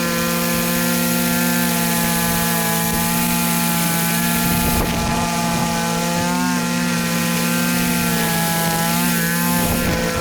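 Petrol whipper snipper (string trimmer) engine running at high revs while cutting grass, its pitch dipping and wavering slightly a few times under load.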